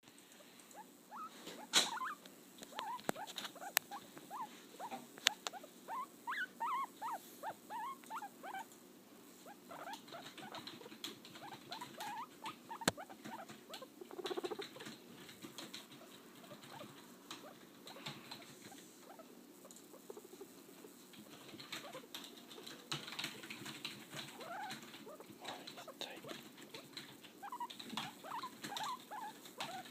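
Guinea pig squeaking: many short, rising squeaks in loose runs, quieter for a few seconds in the middle, with a few sharp clicks and light pattering.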